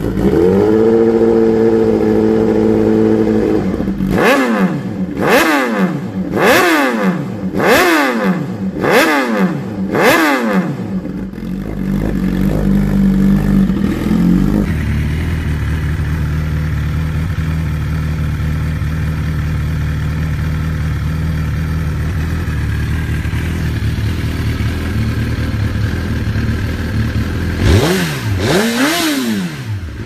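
Suzuki GSX-R inline-four engine through an Austin Racing exhaust, revved and held for about three seconds, then blipped five times in quick succession before settling to idle. After a cut, another GSX-R through an Akrapovic exhaust idles steadily, with one sharp rev near the end.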